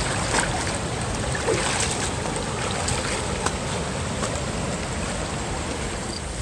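Shallow rocky river rushing steadily, with a few short knocks and rustles of footsteps on the bank.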